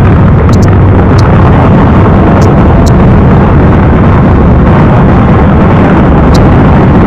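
Dubai Fountain's water jets shooting up and splashing into the lake: a steady, loud, distorted rumble that overloads the microphone, with a few faint clicks.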